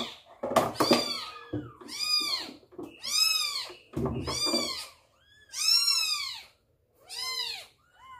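Young kittens meowing over and over, about six high, arching cries spaced roughly a second apart, with a few knocks from handling near the start and about halfway through.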